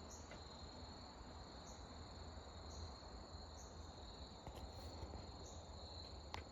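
Faint outdoor insect chorus: a steady high trill, with a short, higher chirp repeating about once a second over a low background hum.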